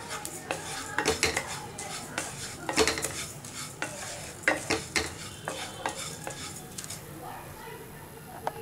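A wooden spatula stirring fennel seeds as they dry-roast in a nonstick pan: the seeds rustle and scrape, with sharp knocks of the spatula against the pan. The stirring is busiest in the first half and thins out toward the end.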